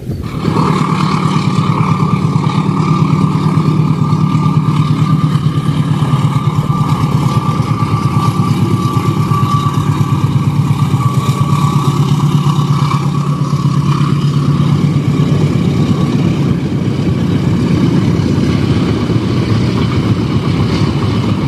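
Diesel passenger train passing: a loud, steady engine drone with the running rumble of the carriages, starting abruptly about half a second in.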